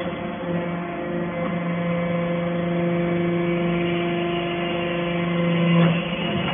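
Vertical hydraulic baler's pump motor running with a steady hum, swelling near the end and then dropping off with a brief knock about six seconds in.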